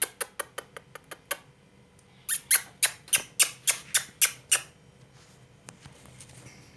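Indian ringneck parrot making a quick series of short, sharp clicks: about eight in the first second and a half, then after a brief pause a louder run of about ten more that stops about four and a half seconds in.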